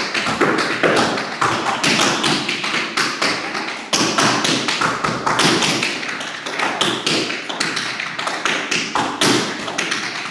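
Tap shoes' metal taps striking a wooden studio floor in a fast, dense run of improvised tap dancing, toe taps mixed with heavier heel drops, with no pause.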